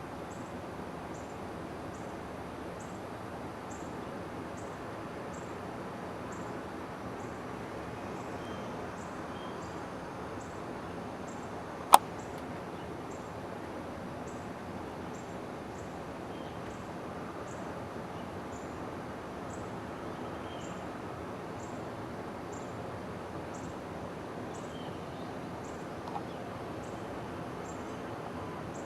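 Steady outdoor background noise with a faint, high, even ticking about twice a second and a few faint chirps. A single sharp click about twelve seconds in.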